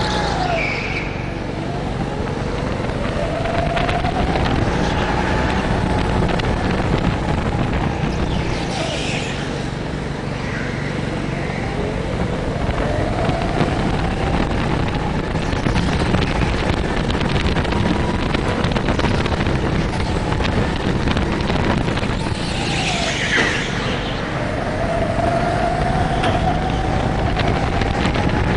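Indoor go-kart engine heard from the driver's seat, revving up and down as the kart is driven hard round the track. Its pitch climbs several times and drops back sharply as the throttle is lifted.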